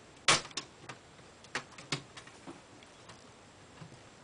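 Plastic snap-fit clips of an Acer Aspire V5 laptop's top cover popping loose as it is pried off the chassis with a screwdriver. A sharp click comes about a quarter second in, the loudest, followed by several lighter clicks and taps over the next two seconds.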